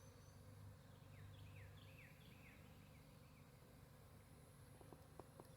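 Near silence with faint background hum; a distant bird sings a run of short, falling chirps from about a second in, and a few faint clicks come near the end.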